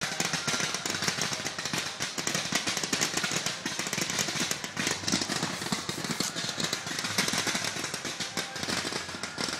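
Fireworks going off: a dense, continuous rattle of crackling and popping.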